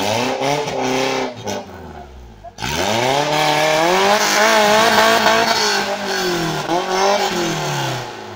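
Modified Maruti Gypsy 4x4's engine revving hard under load as it climbs a muddy rut. It gives a few short bursts of throttle at first, then is held high for about five seconds with one brief dip, and dies away near the end.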